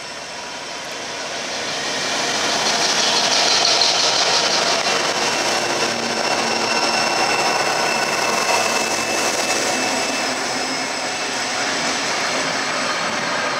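Diesel locomotives led by Pacific National 82 class 8225 passing close by. The engine noise grows louder over the first few seconds as the lead unit comes alongside, then stays loud with a steady high whine.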